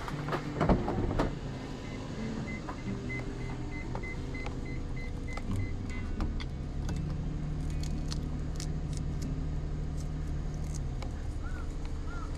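Sounds inside a small van's cabin: a steady low hum, with several knocks in the first second and a half. A faint regular beeping follows for a few seconds, then a few light clicks and taps as fittings on the roof rack are handled.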